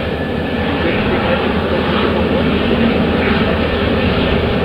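Business jet's turbofan engines making a steady, loud rushing roar as the jet rolls down the runway, growing slightly louder toward the end.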